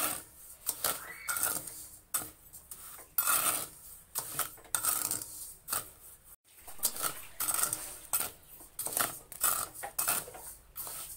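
A perforated metal skimmer stirring chickpeas through sand in a metal wok: repeated scraping strokes of metal on the pan and shifting gritty sand, about one a second.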